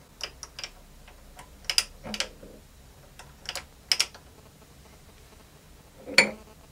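Light metallic clicks and taps from a lathe dog and steel shaft being handled against a lathe chuck. There are a few irregular clicks in the first half and a single louder clack about six seconds in.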